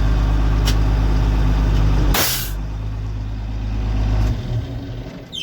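Deutz Agrotron tractor's diesel engine running steadily, with a short, loud hiss of compressed air venting about two seconds in, as from the pneumatic air switch working the chaser bin's elevator. The engine sound drops away near the end.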